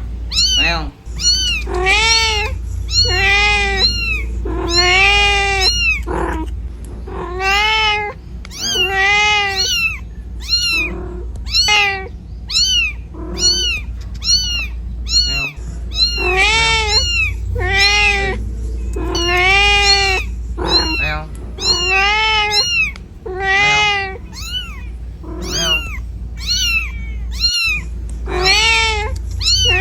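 Mother cat meowing over and over in long, rising-and-falling calls, roughly one every second or two, calling for her kitten. A steady low rumble runs underneath.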